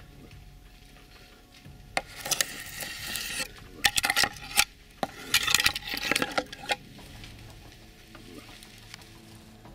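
Dry dead spruce branches scraping, rustling and cracking right against the microphone in two bursts of a few seconds each, full of sharp snaps.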